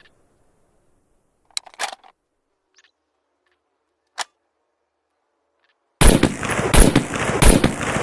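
SVD Dragunov rifle sound effect. A few faint mechanical clicks come first, then about six seconds in a rapid string of loud shots begins, about two a second, each running into the echo of the last.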